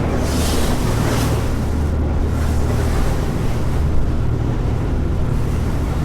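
Wind buffeting the microphone and sea noise over a steady low hum from the fishing boat, with gusts in the first second or so.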